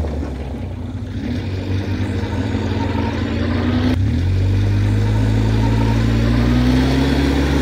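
Polaris Sportsman MV7 military ATV engine running as the quad is ridden. The level dips about a second in, and the pitch climbs slowly over the last few seconds as it speeds up.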